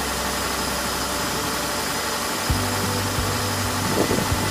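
A 1997 Hyundai Accent's four-cylinder engine idling steadily as it warms up after a thermostat replacement and coolant refill. Its low hum changes a little past halfway.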